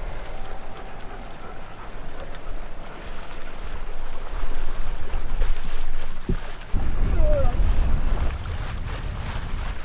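Wind buffeting the microphone over the wash of water along a sailing yacht's hull as it sails in a light breeze. The wind noise grows louder about four seconds in, with a single knock about six seconds in.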